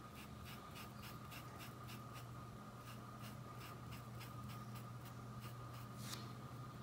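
Wide flat paintbrush stroking white fabric paint onto cloth: faint, rhythmic brushing strokes, about three a second, that stop near the end.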